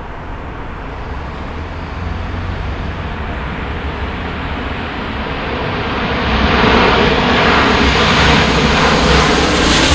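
Twin-engine jet airliner passing low overhead: the jet engine noise grows gradually, then swells sharply about six seconds in, turning brighter and hissier, and stays at its loudest to the end.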